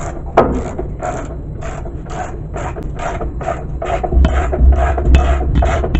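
Ratchet wrench with a 22 mm socket being worked back and forth on the motor-base tensioner bolt of an air handling unit, rasping strokes about two to three a second, with a sharp click near the start. It is moving the motor forward to slacken the drive belts. A low rumble joins about four seconds in.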